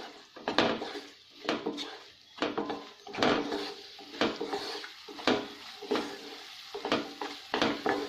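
Wooden spatula stirring and scraping peas and spiced masala around a non-stick kadhai, knocking against the pan about twice a second, over a faint sizzle of the oil.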